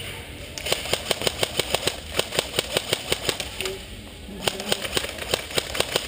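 Airsoft guns firing rapid strings of shots, about seven a second. Two long runs are split by a short pause a little under four seconds in.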